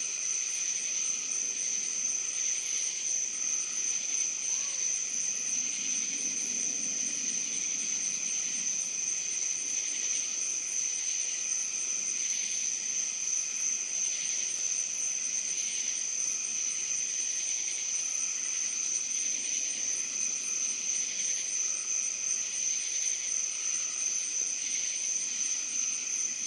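Night-time insect chorus: a steady, high-pitched trill with a fast pulsing. A faint low hum comes in briefly about six seconds in.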